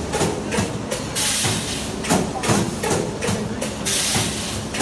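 Multi-head wire mesh spot-welding machine cycling: knocks and clunks from the welding heads and mesh carriage, with a burst of hiss from the pneumatic cylinders about a second and a half in and again near the end.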